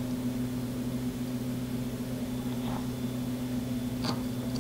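A steady low electrical hum, with a faint click about four seconds in, while a motor wire is held in tweezers and soldered onto an ESC pad.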